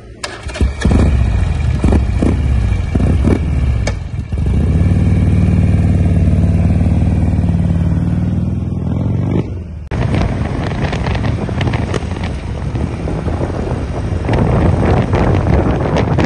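Custom motorcycle engine revved in several quick blips, then held at a steady speed for about five seconds. After an abrupt cut about ten seconds in, the bike is heard being ridden, its engine mixed with rushing wind and road noise.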